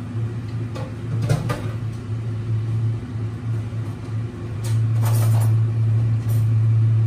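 A steady low hum runs throughout, with a few short knocks and clatters of kitchenware being handled, the busiest patch about five seconds in.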